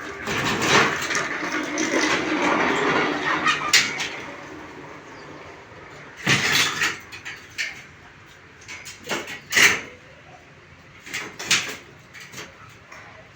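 Repair work on a loose bed base: a scraping, dragging sound for about four seconds, then a run of separate, irregularly spaced knocks.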